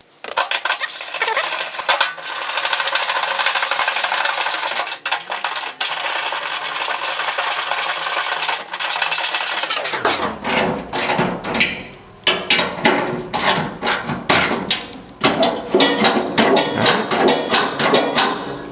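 Ratchet wrench driving the new tailgate handle's 10mm bolts back in: about ten seconds of fast, continuous ratcheting, then separate ratchet clicks, several a second.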